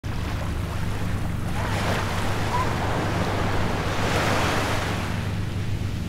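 Sea waves washing onto a beach, surging twice, about two and about four seconds in, over a steady low hum.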